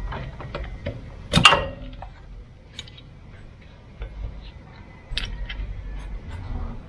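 Socket wrench clicking and knocking against the bolt and metal of a Mitsubishi Montero Sport's rear suspension while a rubber bump stop is bolted on. One sharp metallic clank with a short ring comes about one and a half seconds in.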